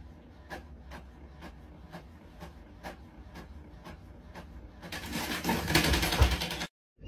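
Inkjet printer printing a page: light ticks about twice a second as the print head moves back and forth, then a louder mechanical run of the feed rollers near the end.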